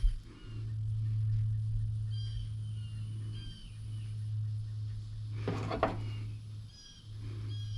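A steady low hum, with a few short high chirps and a brief clatter about five and a half seconds in.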